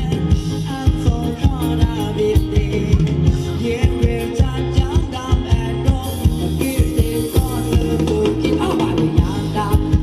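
Live Thai dance band playing a ramwong song in a sam cha (Thai cha-cha) rhythm, with a singer over an even drum beat and bass.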